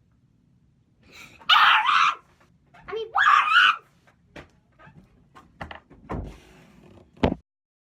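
A person screaming loudly twice in quick succession, followed by a few short knocks and thumps.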